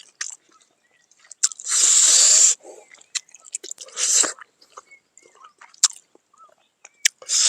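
Close-up eating: wet mouth clicks and smacks of someone chewing fatty pork in gravy, with two louder hissing sucks or breaths, the longer about two seconds in and a shorter one about four seconds in.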